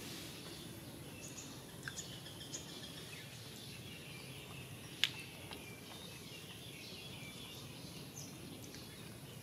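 Quiet outdoor ambience with faint, scattered bird chirps and a steady hiss, broken by a few small ticks near two seconds in and one sharp click about five seconds in.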